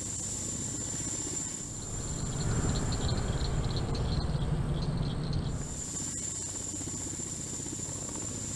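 Sikorsky–Boeing SB-1 Defiant coaxial-rotor helicopter in flight: rapid low rotor beat under a steady high whine, swelling louder for a few seconds in the middle.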